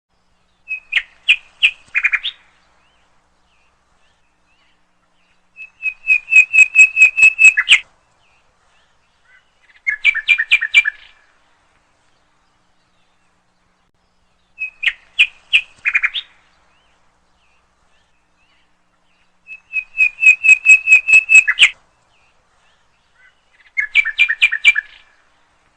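Bird chirping in short phrases with silence between them: a few separate chirps, a fast run of about nine notes, then a two-pitched trill. The same sequence repeats about halfway through, as if looped.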